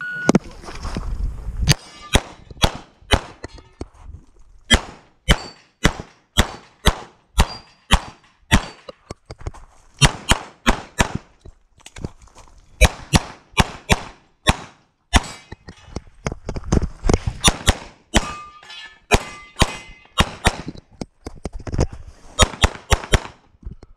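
Electronic shot-timer start beep, then a semi-automatic pistol firing a stage string: dozens of sharp shots, mostly in quick pairs, with short pauses between groups as the shooter moves to new targets.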